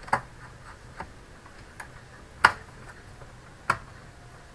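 Sharp clicks and taps of small computer parts being handled as an SSD and its SATA cable are fitted back into an all-in-one PC: about five irregular clicks, the loudest about two and a half seconds in.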